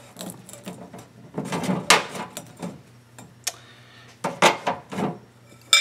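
Dried hot glue being peeled off a glass bowl by hand: a series of short crackling, tearing bursts. A sharp clink with a brief ring comes just before the end.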